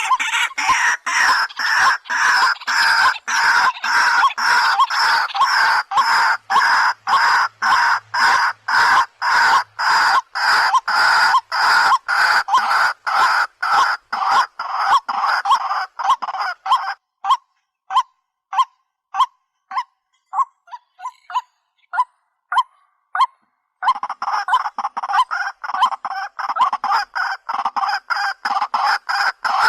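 A bird calling loudly in a fast, even series of harsh notes, about three a second. Around the middle the series breaks into short, spaced chirps for several seconds, then the rapid calling resumes.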